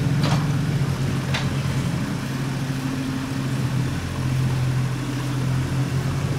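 Mini excavator's engine running steadily while the bucket digs into wet mud, its note shifting slightly a couple of times as the arm works.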